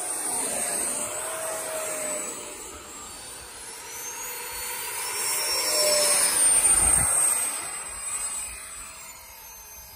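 Electric ducted-fan RC model jets whining at high power as one takes off and passes close. The whine swells to its loudest about six to seven seconds in, its pitch sliding as the jet goes by, then fades.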